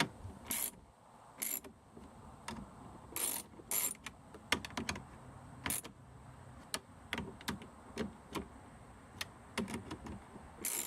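Ratchet wrench with a 10 mm socket clicking in short irregular runs as the side-mirror mounting bolts are tightened, with a few louder knocks of the tool against the door.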